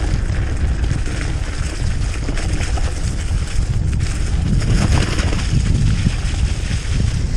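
Steady wind buffeting the microphone, a loud low rumble with a fainter hiss above it.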